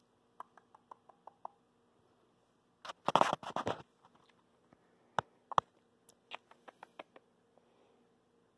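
A few light clicks, then a loud burst of rustling and scrabbling about three seconds in that lasts about a second, followed by several sharp single taps.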